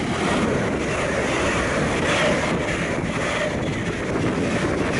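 GWR Class 802 bi-mode intercity train passing close at speed without stopping: a loud, steady rush of wheels on rail and air as the carriages go by, swelling in as the front of the train arrives.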